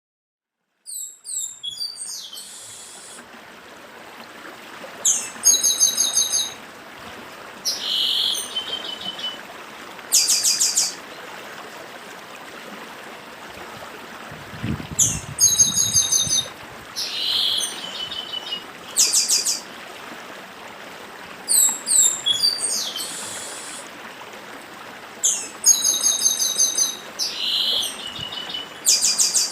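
Chestnut-capped blackbird singing its 'dedim' song: phrases of sharp high notes and fast buzzy trills, repeated every two to three seconds, over the steady rush of a stream.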